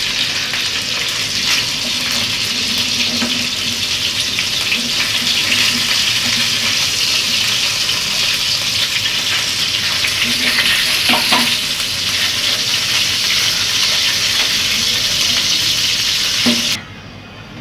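Whole climbing perch (koi fish) shallow-frying in hot oil in a frying pan: a steady sizzle, with a few scrapes of a wooden spatula turning the fish. The sizzle cuts off suddenly near the end.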